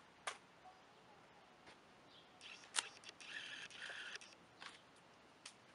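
Faint handling noises of supplies being picked up and moved on a worktable: a sharp click early on, a louder click near the middle, then about two seconds of brief scratchy rattling and rustling.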